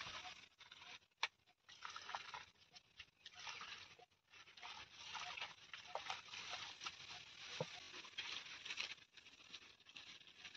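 Faint, irregular rubbing and scraping of a hand smearing wet cow-dung and mud plaster across a floor, in uneven strokes with a few small clicks.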